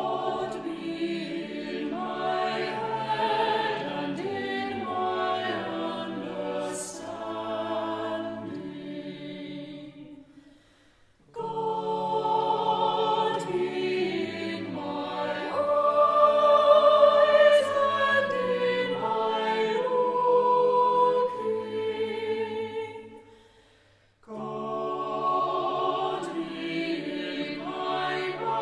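Choral music: a choir singing long, slow phrases, each ending in a brief pause, about ten seconds in and again about twenty-four seconds in.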